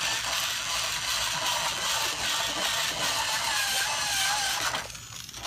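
Small battery-powered toy screwdriver motor running steadily as it drives a screw, stopping shortly before the end.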